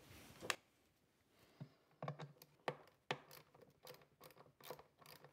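Faint clicks and scratches of a hand screwdriver backing out the screws that hold a loudspeaker's midrange driver and its trim ring in the cabinet's top panel, with scattered ticks.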